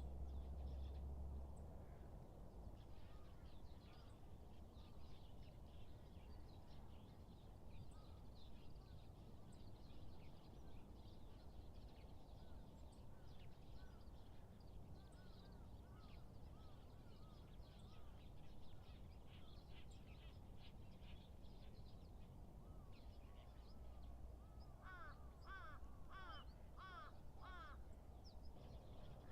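Faint outdoor ambience of wild birds calling, with many small chirps scattered throughout. Near the end comes a louder run of about six short, arched calls.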